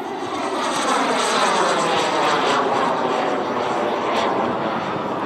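Turbine engine of a radio-controlled F-2A model jet running at high power in a steep climb. It swells about a second in as the jet passes overhead, and its tone sweeps as it goes by.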